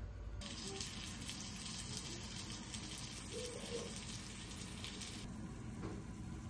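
Starch-coated eggplant slices frying in oil in a pan: a crackling sizzle that starts about half a second in and cuts off abruptly about five seconds in.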